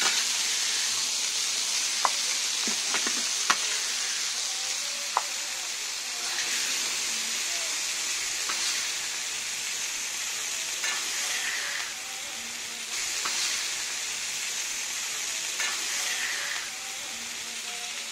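Kefta (spiced minced-meat patties) sizzling on a hot flat griddle, a steady frying hiss that swells and eases. A few sharp clicks stand out in the first five seconds.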